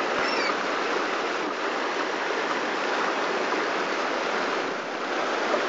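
Steady rush of water as a Hummer's tyres plough through seawater washed over the road by storm overwash, with a couple of faint high chirps near the start.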